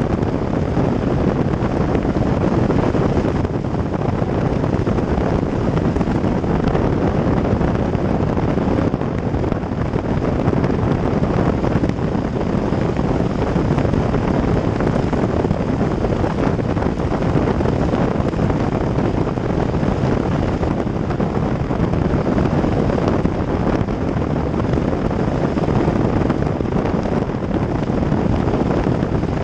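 Steady wind buffeting on a camera mounted outside a moving car, mixed with the rush of tyres on a wet road.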